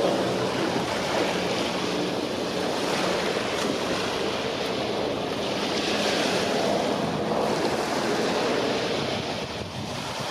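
Sea waves washing and wind on the microphone, a steady rushing noise, with a faint low hum running underneath. It eases off slightly near the end.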